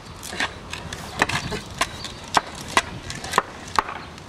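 Skateboard clacking on concrete pavement: a series of sharp wooden knocks, about two a second, as the rider shifts his weight on the board.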